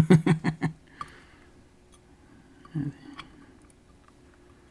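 A short burst of voice at the start, then faint, scattered clicks and ticks of small metal lock parts being handled while a Sargent Keso high-security lock is taken apart.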